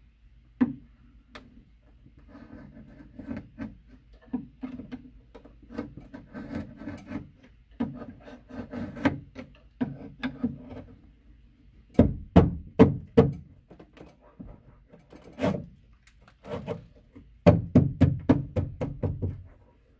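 Hand drywall saw (jab saw) cutting through drywall in short back-and-forth rasping strokes, enlarging a hole in the wall. The strokes come in uneven runs, with faster, louder sawing about twelve seconds in and again near the end.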